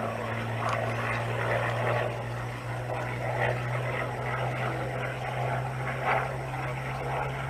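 Distant formation of Spitfires and other piston-engined fighters flying past, heard as a steady low engine drone.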